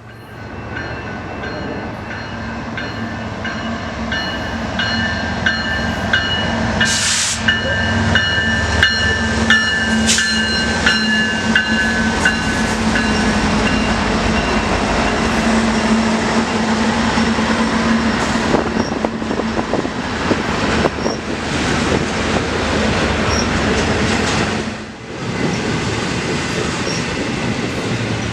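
Intermodal freight train rolling past: a steady rumble and low hum with a constant clicking of wheels over rail joints. For several seconds in the first half there are high-pitched wheel squeal tones.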